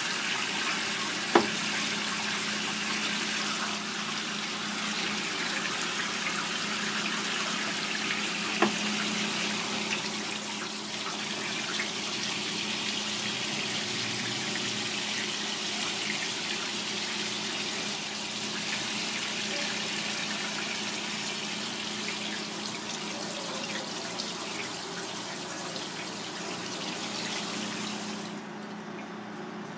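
Kitchen tap running steadily into a sink, with two sharp knocks, one about a second in and another about eight seconds in. The flow stops near the end.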